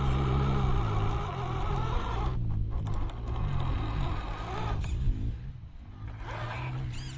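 RGT EX86190 radio-controlled 4x4 off-road model driving, its electric motor and gear drivetrain whining as the speed rises and falls. It goes quieter briefly about two seconds in and again near six seconds.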